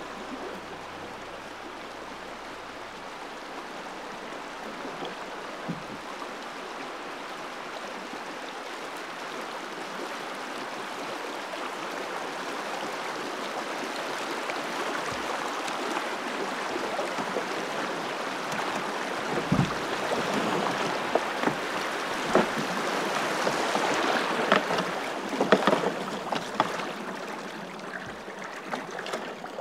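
Fast river current rushing through shallow rapids around a moving canoe, a steady hiss that grows louder over the first twenty-odd seconds. Near the end come sharp splashes and knocks against the canoe.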